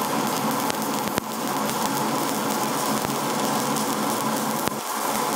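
Stick (shielded metal arc) welding: the electrode's arc giving a steady crackling hiss with a few sharp pops, about a second in and again near the end, as hardfacing beads are laid on steel plate.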